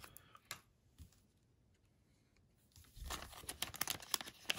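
Foil baseball-card pack wrapper crinkling and tearing as it is pulled open, faint at first with a few light ticks, then a dense run of crackling from about three seconds in.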